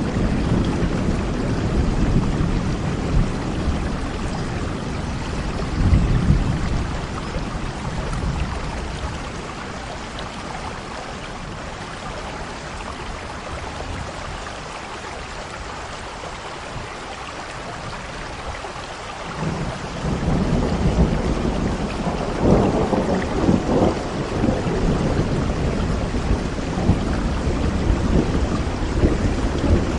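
Steady rainfall with rolling thunder. The low rumbles ease off for a while in the middle and build again about two-thirds of the way in.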